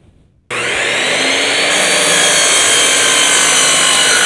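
12-inch Bosch sliding miter saw starting abruptly about half a second in, its motor running loud and steady. About a second later the blade cuts through a spruce-pine-fir 1x4 board at a 45-degree miter, adding a harsher, higher sound.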